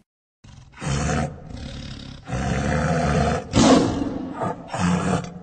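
Tiger roaring: a run of several deep, rough roars one after another, the loudest about three and a half seconds in.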